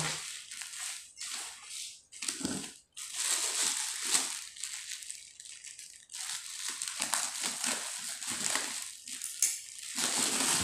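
Clear plastic wrapping crinkling and rustling in uneven bursts as it is handled, cut and pulled off a wrapped cooking pot.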